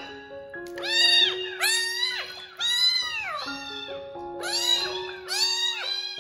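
Young kitten meowing over and over while held in its bathwater: a string of loud, arching cries, roughly one or two a second, with one longer drawn-out meow about halfway through. Background music with sustained notes plays underneath.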